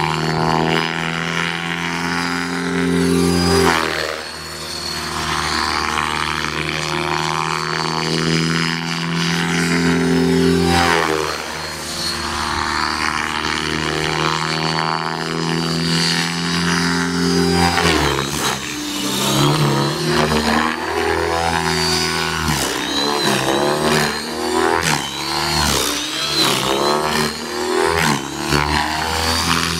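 Align T-Rex 600E electric radio-controlled helicopter flying: a steady rotor drone that slowly rises and falls in pitch, then from a little over halfway swings up and down quickly as the helicopter is thrown through hard manoeuvres.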